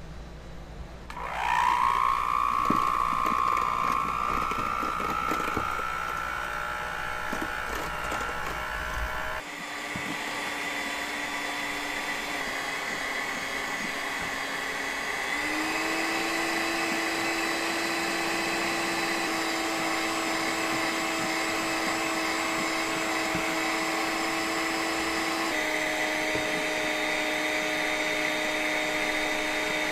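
Electric hand mixer whipping cream in a glass jar: the motor starts about a second in with a whine that slowly rises in pitch. Its tone then steps to a different steady pitch about a third of the way in, and shifts twice more later.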